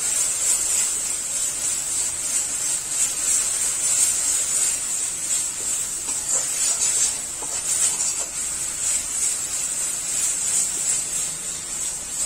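Ground onion and ginger-garlic paste frying in hot mustard oil in a kadai: a steady high sizzle, with a metal spatula scraping the pan now and then as the paste is stirred.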